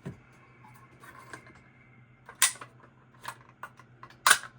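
Fire alarm pull station, a Johnson Controls JBG12L, being worked by hand: a few light ticks and two sharp mechanical snaps about two seconds apart as the handle is pulled and latches.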